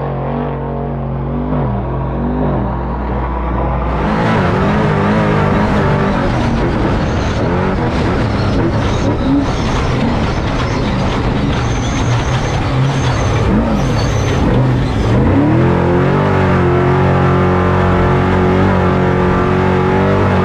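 Off-road truck engine running hard, revving up and down over and over. About four seconds in it turns noisier and harsher. Near the end it climbs and then holds at a steady high rpm.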